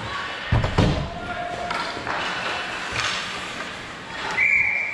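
Rink sounds during a youth ice hockey game: two heavy thuds about half a second in over a background of voices, then a referee's whistle blown long and steady near the end.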